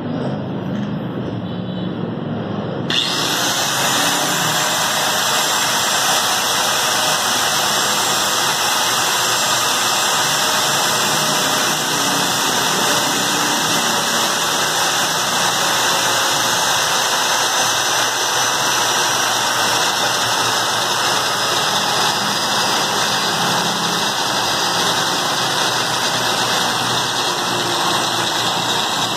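Bosch angle grinder switched on about three seconds in, then running steadily with no load while its speed is turned down with the knob of a 4000 W voltage reducer; faint whine lines drift slowly lower in pitch.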